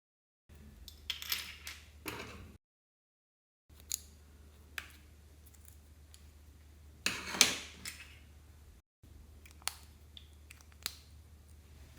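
Slime being worked by hand, giving scattered sharp clicks and crackly pops, with a louder crackling burst about seven seconds in. The sound drops to dead silence twice near the start.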